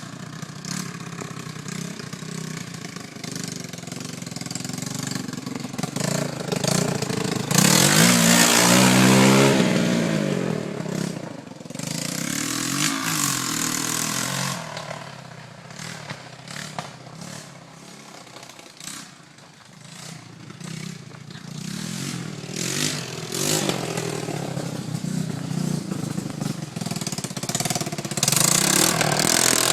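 ATV engine running and revving, with the pitch climbing as it accelerates. It is loudest about eight seconds in and again near the end.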